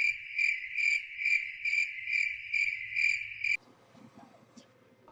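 Crickets chirping: a steady high trill pulsing about twice a second, which cuts off abruptly about three and a half seconds in.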